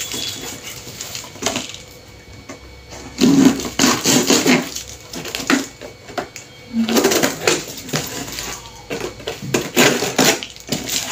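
Cardboard shipping box being slit open with a knife: scratchy cutting and scraping along the packing tape, with rustling and handling of the cardboard in irregular bursts.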